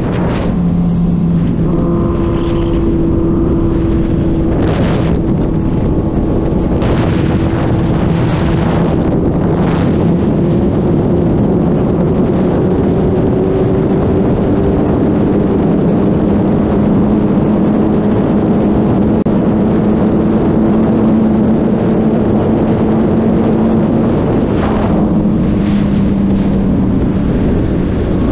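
2020 Suzuki Hayabusa's inline-four engine running at steady highway cruising speed, its note drifting slightly up and down, with wind rushing over the microphone.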